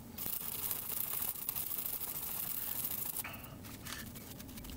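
Small brush scrubbing corrosion off a keyboard circuit board around a chip, a scratchy hiss that stops about three seconds in.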